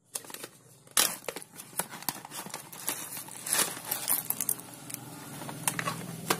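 Crinkling and rustling of a coffee-bean bag being opened and handled, with many sharp crackles and clicks; the loudest crackle comes about a second in.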